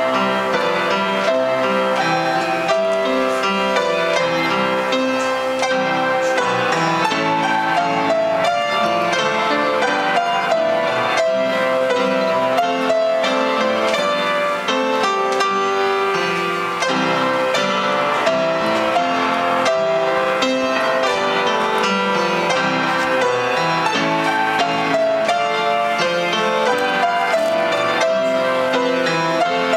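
Upright piano played as a duet, four hands at one keyboard, in a steady unbroken stream of notes.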